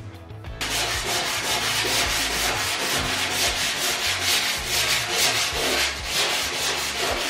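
Sandpaper rubbed by hand in quick back-and-forth strokes over the edges of a steel BMW E28 front fender, starting about half a second in. It is taking the last primer and surface rust off, down to bare metal.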